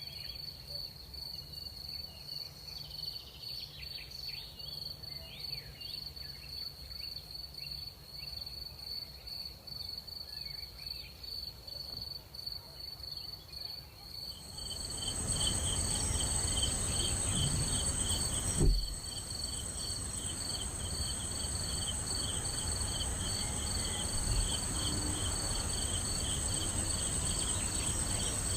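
Night crickets chirping in a steady, pulsing high trill. About halfway through, a louder layer of insect calls joins along with a soft, even rushing noise, and one short sharp thump comes a few seconds after that.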